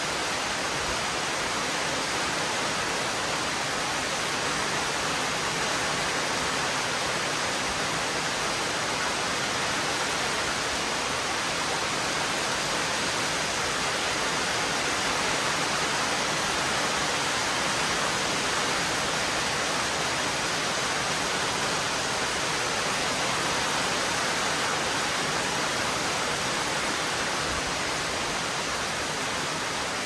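Heavy rain pouring steadily, a dense even hiss.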